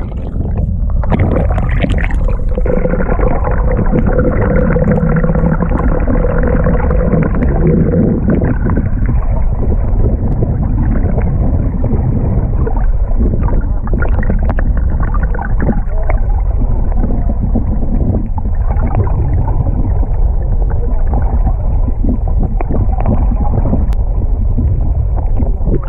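Muffled underwater sound picked up by a submerged action camera: a dense, low rumbling water noise, with a faint steady hum for the first several seconds.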